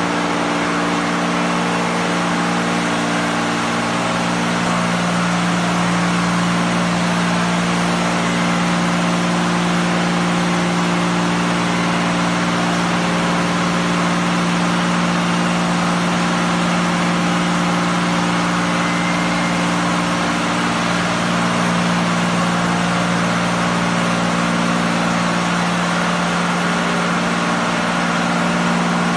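Touchless automatic car wash machine running: a steady machine hum under the continuous hiss of high-pressure water jets spraying the car.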